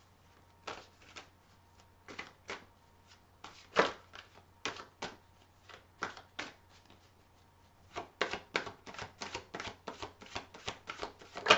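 A deck of tarot cards being shuffled by hand, giving a run of sharp, irregular card clicks and slaps. They are scattered at first and come quickly, several a second, for the last few seconds.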